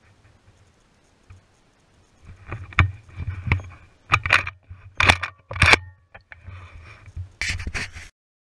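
Close handling noise on the microphone: an irregular run of sharp clicks, clinks and scrapes with a low rumble under them. It starts about two seconds in and cuts off abruptly near the end.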